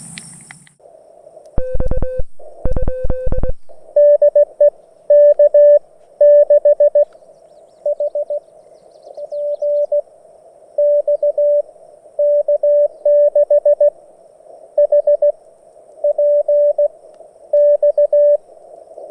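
Morse code (CW) on a portable amateur radio: a single mid-pitched tone keyed on and off in dots and dashes over the receiver's steady hiss. A first short run a couple of seconds in sits slightly lower in pitch than the longer run that follows.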